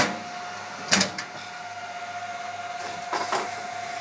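Electronics cabinet cupboard door being shut: a sharp latch click, a double knock about a second later, and softer knocks around three seconds in. Under it the switched-on control cabinet keeps up a steady hum with a thin whine.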